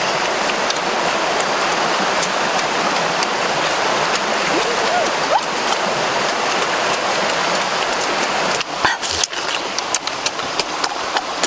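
Steady rushing of a flowing stream over rocks. A couple of short whistle-like pitch glides come about halfway through, and in the last few seconds the rush gives way to uneven clicks and smacks of eating.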